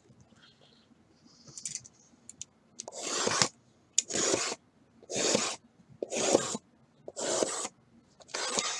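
Shrink-wrapped trading-card boxes sliding and rubbing against each other as they are pulled from a stack and restacked: a series of about six scraping swishes, roughly one a second.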